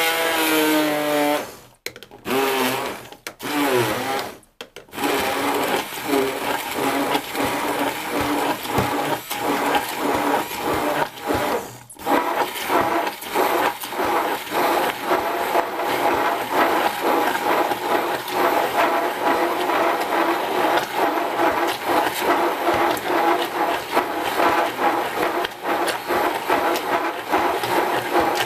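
Bosch ErgoMixx 600 W immersion (stick) blender whizzing milk and banana into a milkshake in its tall plastic beaker. It starts with a falling whine as the blade bites into the liquid, then stops and restarts in short pulses for the first few seconds. After that it runs steadily, with a brief break about twelve seconds in.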